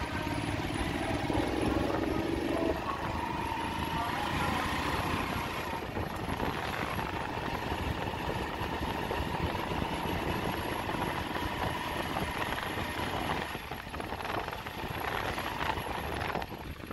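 Steady engine and road noise of a vehicle driving along a village road, heard from on board, with a low rumble and a faint held whine.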